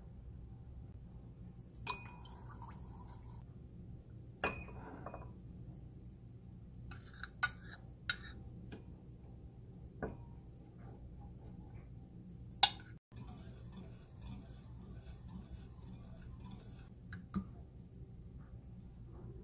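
A metal spoon clinking against a ceramic bowl and a glass measuring cup, several light clinks spread out with the sharpest about two-thirds through, and soft stretches of liquid being poured in between.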